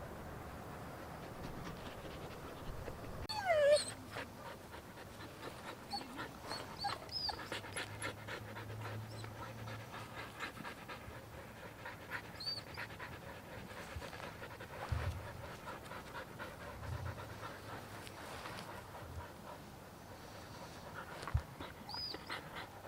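Huskies panting, with whines and whimpers; one louder wavering whine slides down in pitch about three and a half seconds in. The dogs are upset at being kept out of the dog park.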